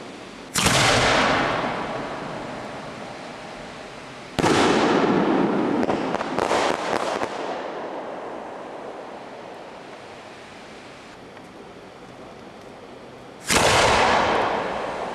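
Aerial firework shells bursting: three loud booms, about half a second in, about four seconds in and near the end, each trailing off in a long echoing rumble. A quick run of smaller cracks follows the second boom, around six to seven seconds in.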